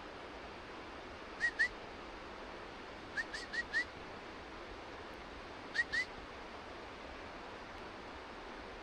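Steady rush of flowing stream water, with short, high, rising chirps over it: a pair, then a run of four, then another pair.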